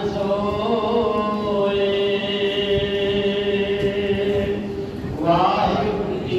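A man's voice chanting Sikh Gurbani in Punjabi, drawing one syllable out into a long held note for about five seconds before moving on to the next.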